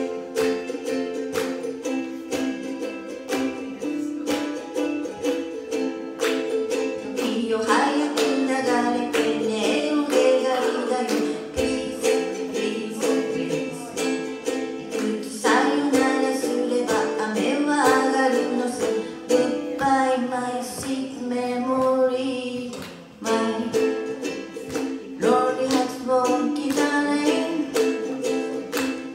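A woman singing a song to her own strummed ukulele. The first several seconds are strumming alone before her voice comes in, and the playing drops out briefly about two-thirds of the way through before picking up again.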